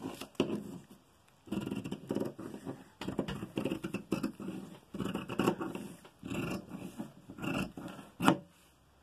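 Dressmaking scissors cutting through two layers of fabric around a paper pattern: a long run of closely spaced snips, with a short pause about a second in.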